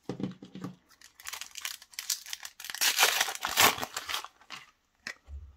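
Plastic wrapper of a Panini Super Mario trading card pack crinkling and tearing as it is ripped open and the cards are pulled out. The crinkle comes in irregular bursts and is loudest about three seconds in.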